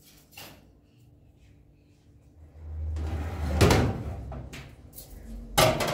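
Household handling noise: a scraping rumble building up halfway through, with two sharp knocks, one about halfway through and one near the end.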